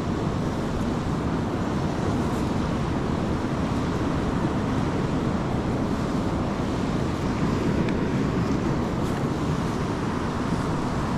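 Steady rushing roar of a large, fast-flowing river, an even wash of water noise with no breaks.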